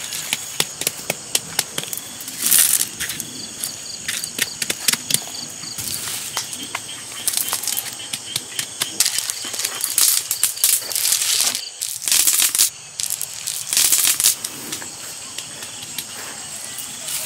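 River pebbles clicking and knocking against one another and scraping over gritty ground as they are set by hand, in quick irregular strikes with a few longer scrapes. Insects trill steadily behind.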